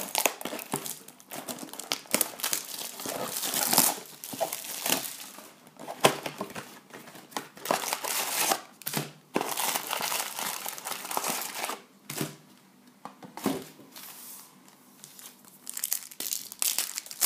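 Foil-wrapped trading card packs and their cardboard box being handled: irregular crinkling and rustling as the packs are pulled out of the box, with a foil pack being torn open near the end.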